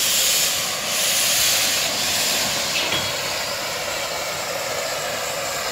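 RH&DR's 15-inch gauge Pacific steam locomotive Green Goddess letting off steam at a standstill: a loud hiss that starts suddenly, stays strong for about two and a half seconds, then settles to a steady, quieter hiss.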